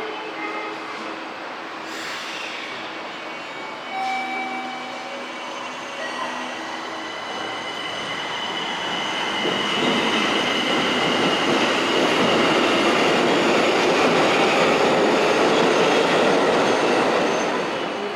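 Tokyo Metro 1000 series Ginza Line subway train moving through the station, with steady high-pitched wheel squeal over the running noise. The sound grows louder from about eight seconds in and eases off near the end.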